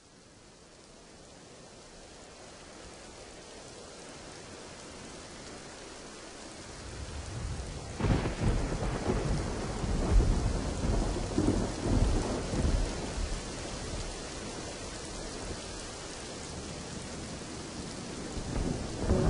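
Steady rain fading in, joined about seven seconds in by rolling thunder that rumbles loudest through the middle.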